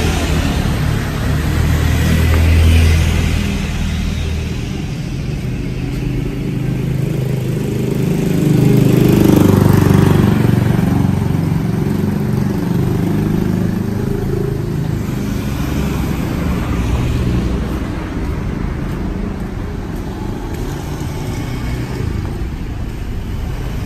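Street traffic with motor scooters passing by, louder as one goes past about two to three seconds in and again about eight to ten seconds in.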